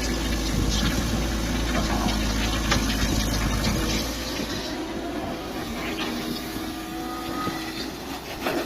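Mini excavator engine running steadily while digging, with scattered short knocks and clatter over it. The deep rumble eases a little about halfway through.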